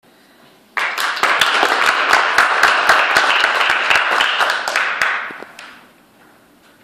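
Audience applauding: the clapping starts suddenly just under a second in, holds steady, and dies away around the sixth second.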